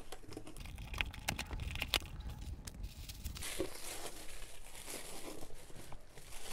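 A taped cardboard shipping box being opened, with a few sharp clicks and tearing in the first two seconds, then tissue paper and a plastic bag rustling as they are pulled apart.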